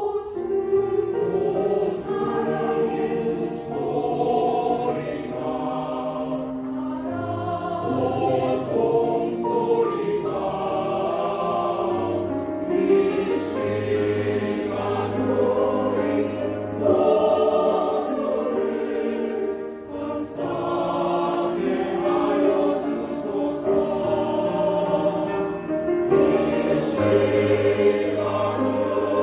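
Mixed choir singing a Korean gospel anthem in full harmony, with piano accompaniment and low held bass notes.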